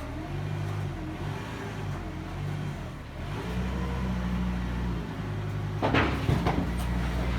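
Stone-working machine running with a steady low hum; about six seconds in, an irregular metallic clattering starts up over it.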